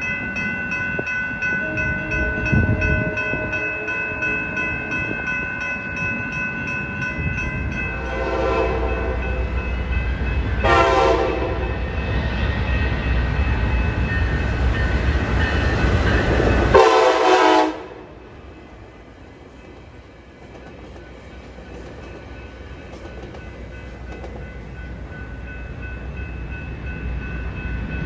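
Railroad crossing bells ringing steadily. A Coaster commuter train then passes with a low rumble and sounds its multi-chime horn in three blasts of about a second each, the last the loudest. The sound then cuts abruptly to quieter crossing bells ringing over traffic.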